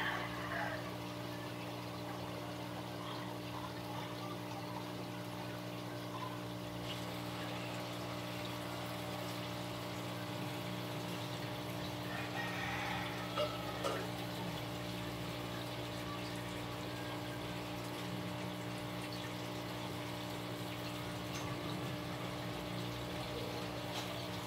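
Steady hum of an electric water pump running, with a faint trickle of water. Short higher-pitched calls break in at the start and again about halfway through.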